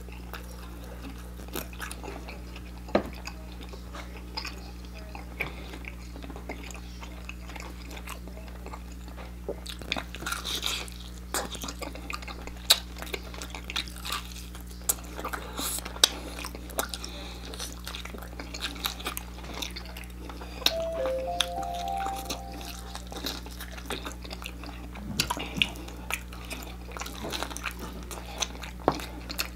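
Close-up mouth sounds of someone eating extra-crispy fried chicken legs: biting into the meat and chewing, as irregular clicks and crackles over a steady low hum. A few short pitched tones come in about 21 seconds in.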